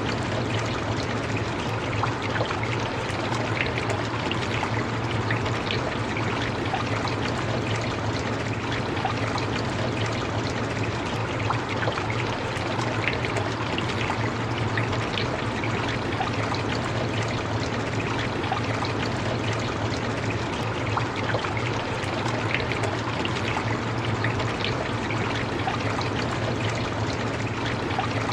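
Steady rain, an even rushing noise with many small drop ticks scattered through it.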